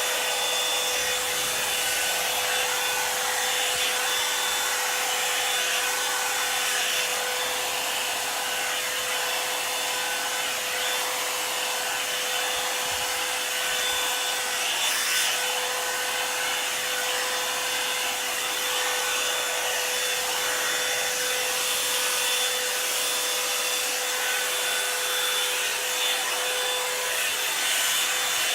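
Revlon One-Step hair dryer brush running steadily, a constant airflow rush with a steady motor whine, as the brush is drawn through hair.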